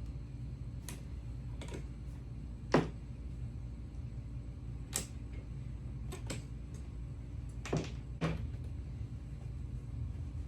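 Scattered sharp clicks and knocks of hand tools working apart a car seat, about seven in all, the loudest a little under three seconds in, over a steady low hum.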